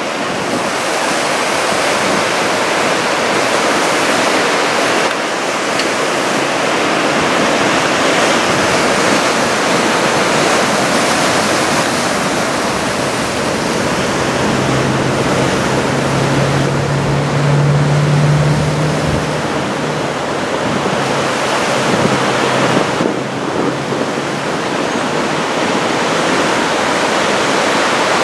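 Big typhoon surf crashing and washing ashore in a continuous roar, with wind buffeting the microphone. A low steady hum joins for about five seconds midway.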